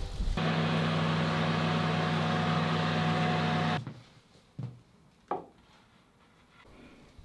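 An electric oven's fan running with a steady humming whir, cutting off abruptly about four seconds in. Then there are two light knocks as an enamel baking dish is set down on a wooden chopping board.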